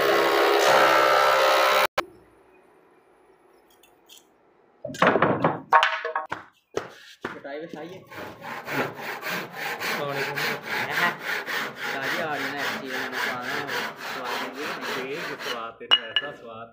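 Hand saw cross-cutting a mahogany beam: a few heavy strokes, then quick, even strokes at about four a second. The cut ends with a knock as the offcut drops to the concrete floor.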